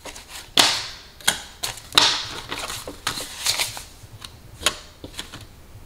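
Paper banknotes rustling and flicking as they are handled and slid into a clear acrylic money tray, an irregular run of short, crisp swishes.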